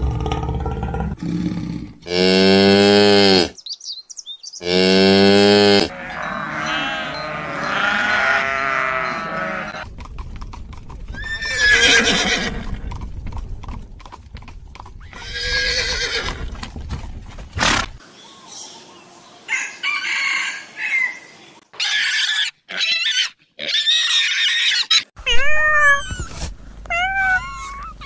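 A run of different animals' calls, one after another. Two long, loud calls come about two and four seconds in, horse whinnies and snorts follow in the middle, and a quick series of short rising-and-falling calls comes near the end.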